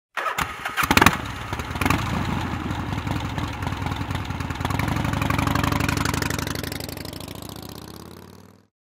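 Motorcycle engine cranked on its starter and catching at about one second in, blipped once shortly after, then idling steadily before fading out near the end.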